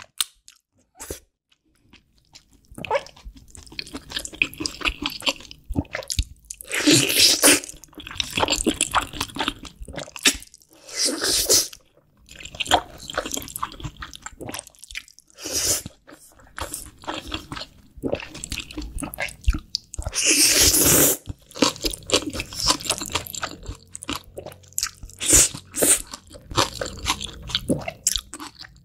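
Close-miked eating of black bean sauce noodles (jjajangmyeon): noodles slurped off a wooden spoon and chewed wetly, in irregular bursts. The loudest stretches come about a quarter of the way in and again around two-thirds through.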